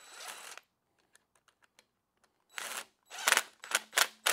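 Cordless impact driver run briefly, its whir stopping about half a second in. It is followed by a few faint clicks, then several short loud bursts near the end as the driver is pulsed to tighten fasteners down onto the pipe.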